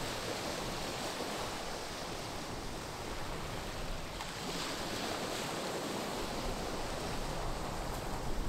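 Small sea waves breaking and washing up a shingle beach: a steady wash of surf.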